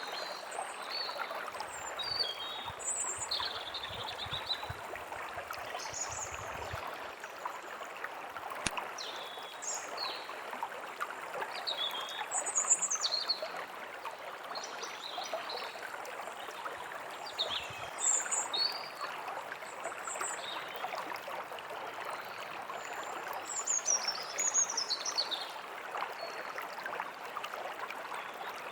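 Steady rushing of a forest stream, with small birds chirping at short, irregular intervals over it.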